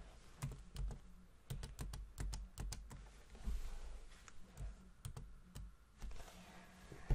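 Computer keyboard typing: an irregular run of key clicks.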